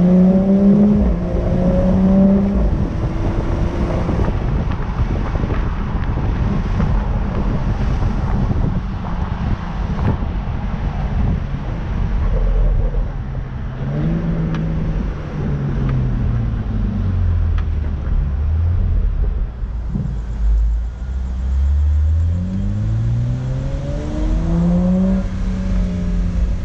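BMW 235i's turbocharged 3.0-litre straight-six with a freshly fitted catless downpipe, heard from inside the moving car over road noise. The engine note falls off to a low drone around the middle, then climbs steadily under acceleration a few seconds before the end and holds there.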